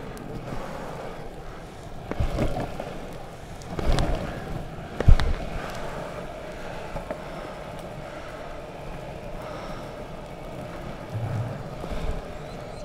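Longboard wheels rolling on an asphalt path: a steady rolling hum with wind on the microphone, broken by a few sharp knocks, the loudest about five seconds in.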